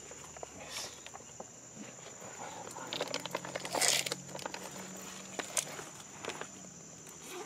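Rustling and footsteps in dry leaf litter on a forest floor, in scattered crackles with the loudest about four seconds in, over a steady high-pitched insect drone.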